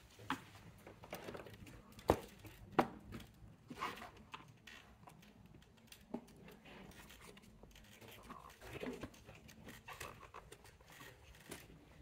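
Plastic clicks, scrapes and knocks as the Mercedes-Benz GLC's front radar sensor is worked out of its clip-in bracket on the bumper cover by pressing its locking tab. The two sharpest clicks come about two and three seconds in.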